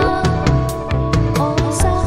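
Electronic pop music played live: held synthesizer chords over a pulsing bass line, with quick, evenly spaced percussion ticks and a few sliding pitches.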